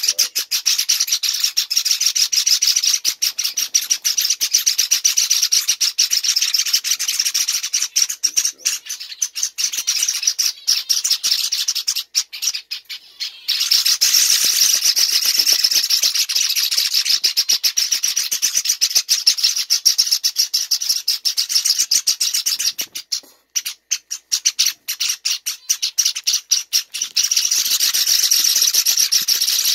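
Six-week-old Java finch (Java sparrow) chicks begging for food: a dense, rapid, high-pitched chorus of begging calls. It breaks off briefly about twelve seconds in and again around twenty-four seconds in.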